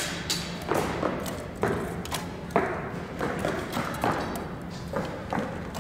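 Archery in a gymnasium: a string of irregular thuds and taps, about two a second, from compound bows being shot and arrows striking foam 3D animal targets. Each hit echoes briefly in the hall.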